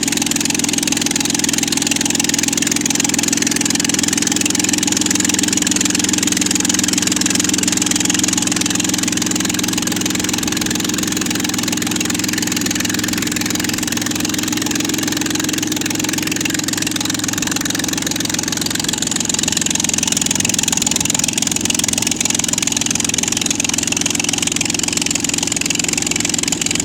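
Aircraft engine of a homebuilt 86%-scale Yak-1 replica fighter running smoothly and steadily on the ground, a little lower for several seconds midway, then picking up again.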